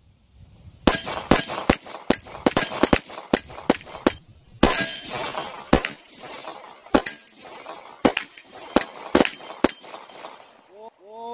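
Sig Sauer P226 Legion RXP single-action-only pistol firing about twenty shots, starting about a second in: quick strings of shots at first, then shots spaced about half a second to a second apart.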